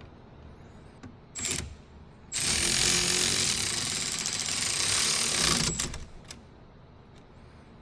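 Power tool running on a fastener: a short blip about a second and a half in, then a run of about three seconds with a steady high whine over a fast rattle.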